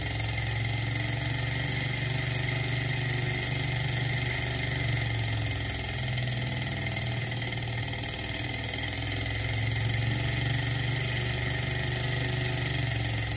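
Small alcohol-fired model Stirling engine running steadily at speed while driving its little generator: an even mechanical running sound with only slight swells in level.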